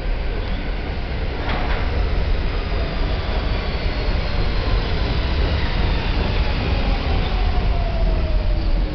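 R46 subway train entering the station and running past close by: a steady loud rumble of steel wheels on rail. Over the second half a whine falls slowly in pitch as the train slows, typical of its traction motors under braking. There is one sharp click about a second and a half in.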